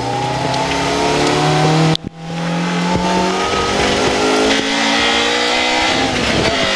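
Rally car engine heard from inside the cabin, accelerating hard with rising revs. There is a quick gearshift about two seconds in, then the revs climb again for several seconds before easing off near the end.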